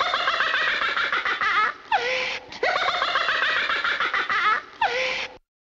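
A person laughing in long, continuous stretches with brief breaks, cutting off abruptly near the end.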